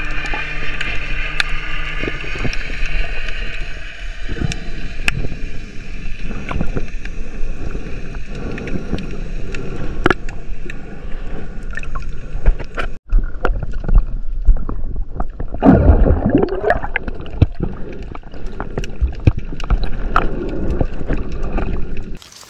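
Underwater sound through an action camera's housing while diving: a steady rush and gurgle of moving water with scattered sharp clicks. A faint steady whine sits under it in the first few seconds, and there is a brief dropout about 13 seconds in.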